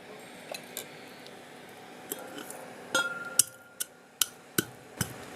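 Whole spices being pounded with a pestle in a mortar: a few light clinks, then from about three seconds in a steady run of sharp strikes about two and a half a second, the first one ringing briefly.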